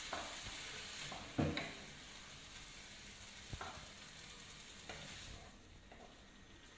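Creamy meat taco filling sizzling in a frying pan while it is stirred, with a spoon knocking against the pan a few times, loudest about a second and a half in. The sizzle dies down about five seconds in.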